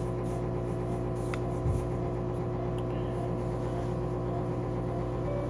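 Steady electrical hum of operating-room equipment, with a brief click and then a short low thump about a second and a half in. A short electronic beep sounds right at the end.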